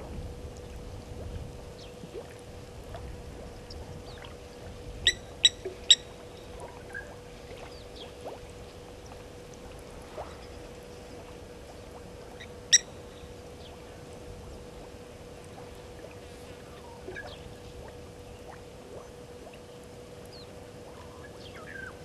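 Open-air bush ambience with a steady faint hiss and a constant electrical hum. Over it come short, sharp, high bird calls: three in quick succession about five seconds in, one more a little past the middle, and faint scattered chirps.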